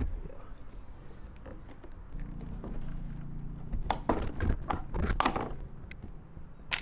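Sharp clacks and knocks of hard plastic and a hand tool as a cut-out section of the Neuton mower's plastic deck is worked loose and pulled free. The knocks come in a quick cluster about four to five seconds in.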